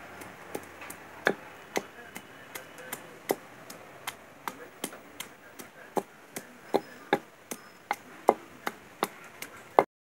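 Metal pestle pounding pieces of peeled ginger in a wooden mortar: an even run of sharp knocks, about two or three a second.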